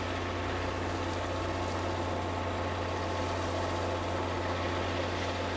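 Diesel locomotive engine running steadily, a continuous low drone.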